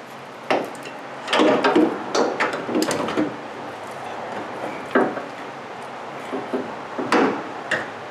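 Metal clunks and knocks of a steering rack-and-pinion unit being pushed up and fitted into its mounts under a pickup truck's front frame. There is a sharp knock about half a second in, a run of knocking and rattling between about one and three seconds in, and single knocks near five and seven seconds in.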